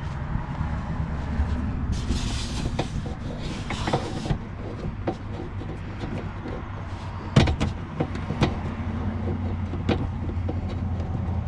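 Clicks and light knocks of plastic rod clips being flipped open and metal door-handle rods pulled free inside a car door, with a couple of short rustles, over a steady low hum.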